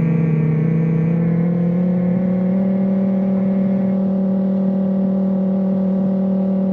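Outdoor tornado warning siren sounding a steady tone. It rises slightly in pitch over the first second and then holds level.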